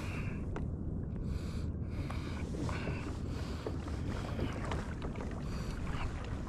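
Wind buffeting the microphone with a steady low rumble, and water sloshing and splashing around a kayak in uneven bursts.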